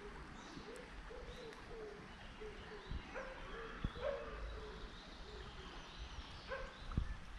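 Faint park ambience: birds chirping and an animal giving quick, repeated short calls, with a steady low rumble underneath.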